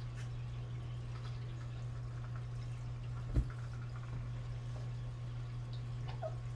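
A steady low hum runs throughout, with a single short low thump about three and a half seconds in and a few faint small ticks.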